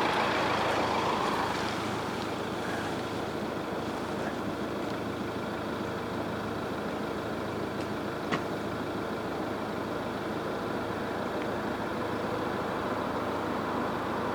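Motorhome on the move: steady engine and road noise, with one short click about eight seconds in.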